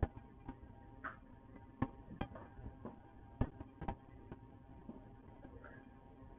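Irregular knocks and clicks of items being shifted about inside an open refrigerator freezer, about a dozen sharp hits at uneven spacing over a faint steady hum.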